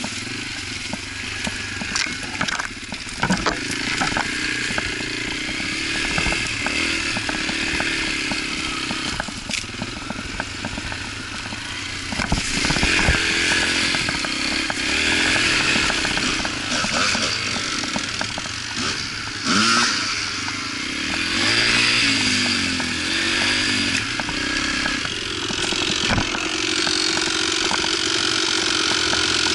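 Yamaha TT-R125 dirt bike's single-cylinder four-stroke engine heard from on board, its revs rising and falling again and again as it is ridden, with scattered knocks and rattles.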